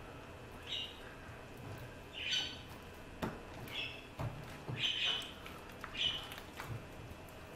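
Pet budgerigars squawking: about five short, harsh calls spaced a second or so apart.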